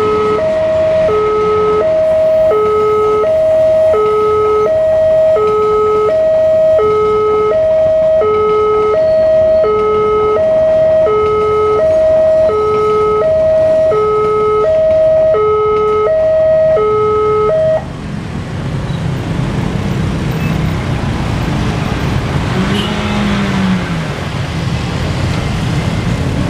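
Railway level-crossing warning alarm sounding a repeating high-low two-tone signal while a passenger train passes. The alarm cuts off suddenly about 18 seconds in, leaving the broad rumble of the passing train and road traffic.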